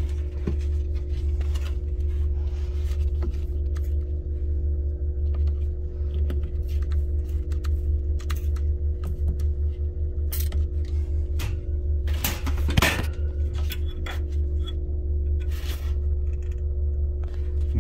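Steady machinery hum with a low drone and a few held tones, broken by scattered sharp clicks and taps of handling; the loudest tap comes about twelve and a half seconds in.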